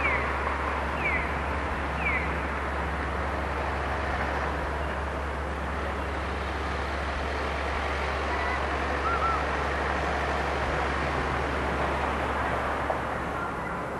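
Steady city street traffic as cars pass and a two-section low-floor tram rolls along the street, with a few short high chirps about once a second at the start.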